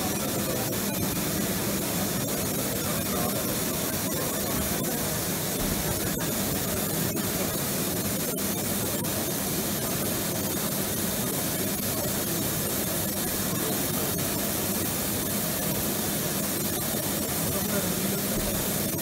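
Steady hiss and low hum of running packaging machinery in a busy exhibition hall, with indistinct background voices and a few faint clicks.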